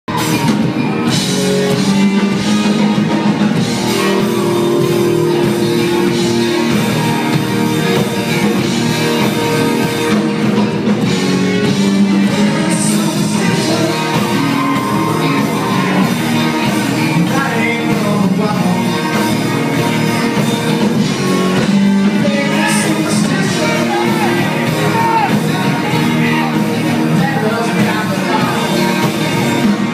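Live rock band playing a song, with electric guitars, drums and a lead singer, recorded from within the audience.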